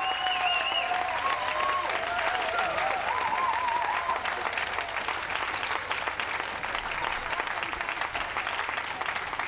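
Crowd applauding, a dense steady clapping. A few held tones sound over the clapping in the first four seconds.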